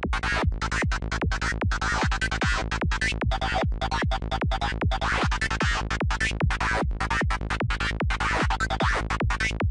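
Psytrance loop at about 150 BPM: a kick drum on every beat with a gritty, dark FM-style synth lead from NI Massive sounding between the kicks.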